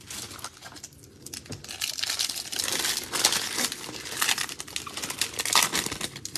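Upper Deck Series One hockey card foil pack crinkling as it is pulled from the box and torn open by hand. The crackle starts faint and grows louder and denser after about a second and a half.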